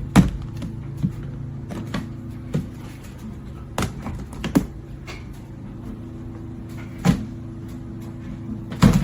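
Hard plastic knocks and clicks, about seven of them spaced irregularly, from a hooded plastic cat litter box being handled, its hood and base knocking together, over a steady low hum.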